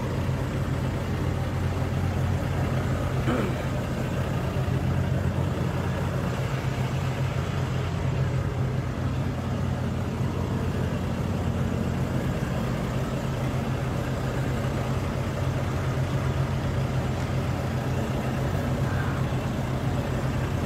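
Diesel engine idling steadily, a low even drone.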